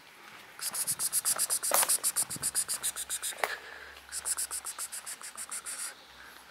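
An insect, cricket-like, chirping in two fast high-pitched trains of pulses, about ten a second, each lasting two to three seconds.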